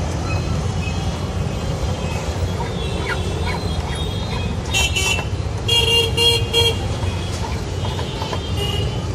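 Road traffic rumbling, with a vehicle horn honking: one short toot about halfway through, then a longer honk broken into three quick beeps.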